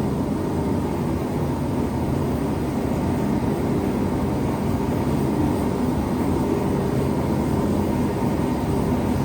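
A forge running steadily, heating a steel knife blade to anneal it.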